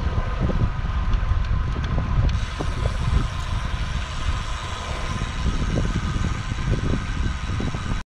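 Wind buffeting the microphone of a handlebar camera on a road bike riding at speed, a steady low rumble with tyre and road noise under it. It cuts off suddenly near the end.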